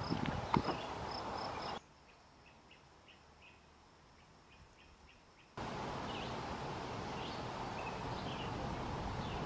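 Outdoor ambience with birds chirping over a steady background hiss. It changes abruptly twice: about two seconds in it drops to a much quieter stretch with faint, regularly repeated chirps, and a few seconds later it returns to a fuller hiss with scattered bird chirps.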